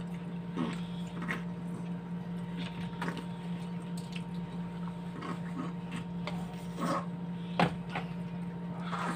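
Eating sounds: chewing with soft squishy mouth noises and a few light clicks and taps, the sharpest a little past halfway, over a steady low hum.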